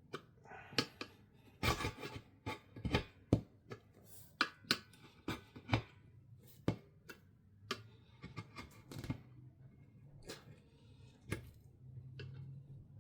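Screwdriver prying a tire's bead over the lip of a bead lock wheel: irregular sharp clicks, taps and scrapes of the tool against the wheel and tire.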